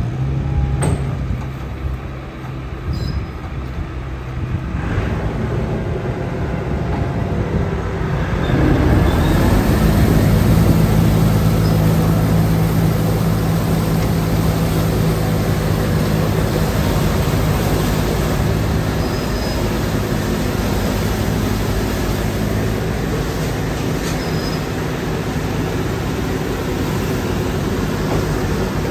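Tractor-driven straw bale chopper running, its rotor and fan blowing chopped straw out of the chute, over a low steady hum. The sound builds between about four and nine seconds in, then holds loud and even.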